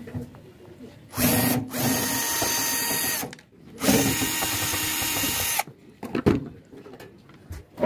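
A cordless drill-driver backs out the screws of an amplifier's metal cover. The motor runs twice, each run about two seconds long, and then come a few light clicks and knocks.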